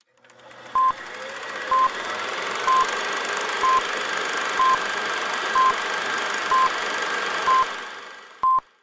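Film-leader countdown sound effect: a short beep about once a second, nine in all, over a steady hiss with faint crackle that fades in at the start and fades out just before the last beep.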